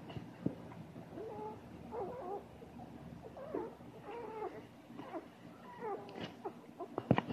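Puppies squeaking and whining in short, high little cries while nursing from their mother. A quick run of sharp knocks comes near the end.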